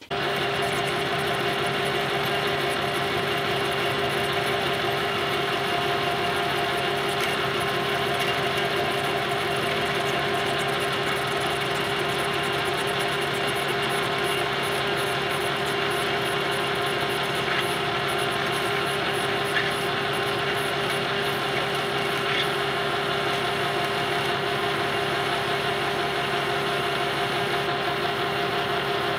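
Metal lathe running under power with a steady, even hum from its motor and gearing while a single-point tool takes a threading pass on a tube for a tapered pipe thread.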